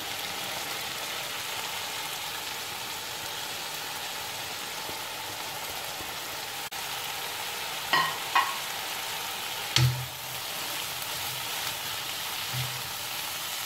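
Chicken and freshly added shredded carrots sizzling in hot oil in a wok, a steady hiss as they are stirred with a spatula. A few sharp knocks of the spatula against the pan come about eight and ten seconds in.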